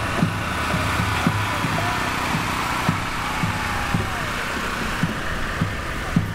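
A motor vehicle's engine running with a steady low hum, with low thumps about twice a second.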